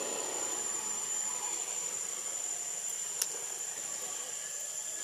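Insects shrilling with a steady high-pitched whine over a soft hiss, with a single sharp click about three seconds in.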